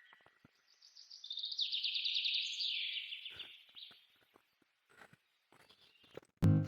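A bird singing one fast, high trill of about two and a half seconds that steps down in pitch as it goes. Loud guitar music starts just before the end.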